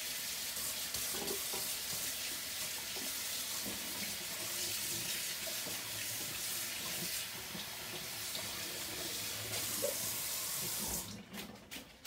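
Water running steadily from a sink tap as a hand is rinsed under it; the flow stops abruptly near the end.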